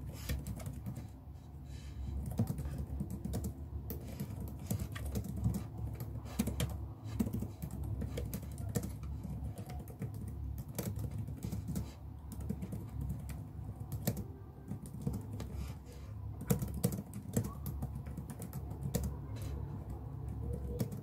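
Typing on a compact white computer keyboard: a steady, irregular run of light key clicks as she types out an article.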